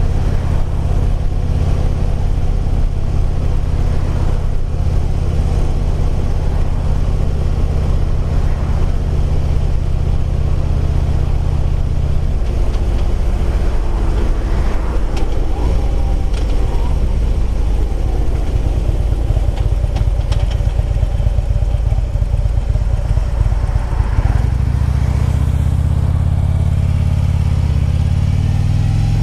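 Harley-Davidson Ultra Limited V-twin engine running steadily under a riding load. The engine note drops about twelve seconds in and climbs again near the end as the bike accelerates.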